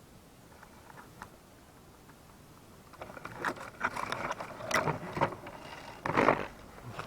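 Irregular rustling, scraping and crunching noises that start about three seconds in, with a louder burst near the end.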